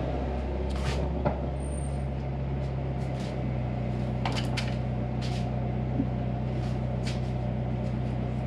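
Scattered light plastic clicks and rustles as the oil evacuation pump's hose and canister are handled, over a steady low hum.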